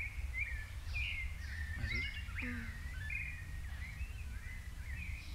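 Small birds chirping in many short, quick calls, one after another, over a steady low background rumble.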